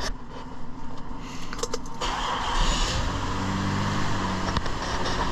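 Mazda 6 3.0 L V6 being started: the starter cranks about two seconds in, and the engine catches and runs. It runs rough and pops, the sign of the intermittent cylinder 2 misfire.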